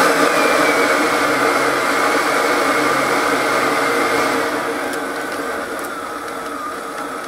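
Small electric air-pump blower feeding a forge, its motor whirring as its triac speed controller is turned down. The whine slowly falls in pitch and the sound gets quieter over the last few seconds, the motor close to stalling at its lowest speed.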